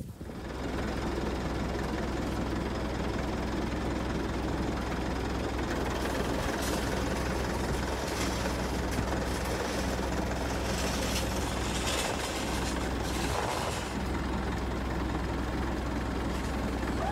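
Compact track loader's engine idling steadily, an even low hum.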